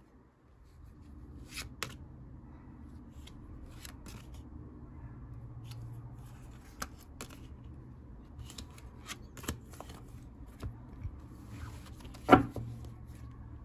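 Tarot cards being shuffled and drawn by hand: scattered soft flicks and slides of card stock over a faint low hum, with one sharp tap on the table about twelve seconds in.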